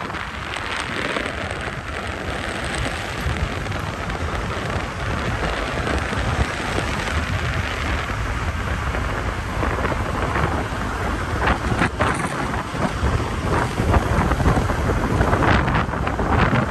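Wind rushing and buffeting over the microphone of a moving motorbike: a steady noisy rush with a low rumble underneath.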